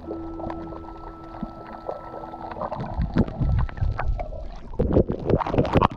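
Water splashing and sloshing against the microphone in irregular surges that grow louder over the second half, over a steady hum in the first half.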